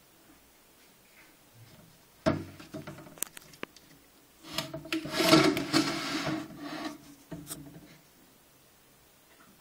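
Dry leaf litter and twigs rustling and scraping in short bouts: a sudden one a little over two seconds in, a longer, louder one from about four and a half to seven seconds, and a brief one near the end.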